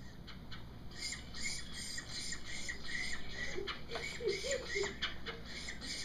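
Recorded red-bellied woodpecker calls played back over classroom speakers: a rapid series of short, repeated calls, about three a second, starting about a second in.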